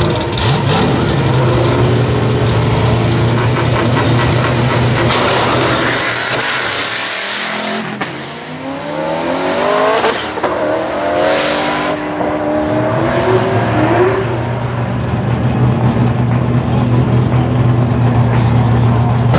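Turbocharged V8 Ford Mustangs drag racing: a steady engine drone, then engines revving hard and rising in pitch again and again as they accelerate through the gears down the strip, settling back to a steady drone near the end.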